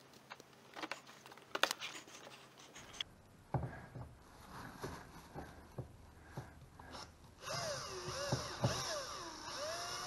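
Scattered clicks and knocks of parts and tools being handled. Then, about three-quarters of the way through, a Makita cordless drill starts up to drill mounting holes for the side skirt, its motor whine rising and falling in pitch as the trigger is varied.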